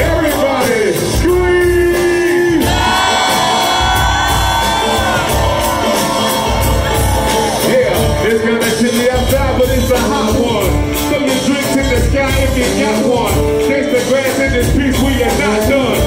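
Live bluegrass–hip-hop band playing over a steady beat, with acoustic guitar and fiddle, long held sung notes early on, and crowd shouts and whoops.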